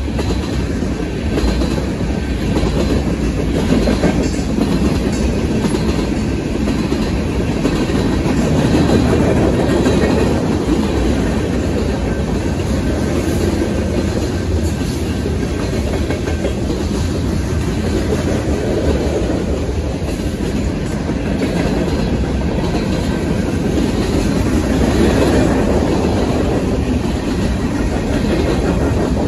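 Freight train's tank cars and covered hoppers rolling past at close range: a continuous loud rumble with the clickety-clack of steel wheels over the rail joints.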